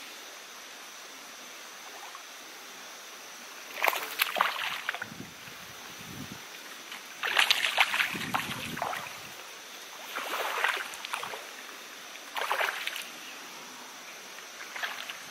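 Water splashing in short bursts, about five times, as a hooked black bass of around 40 cm thrashes at the surface while it is played in and landed at the bank.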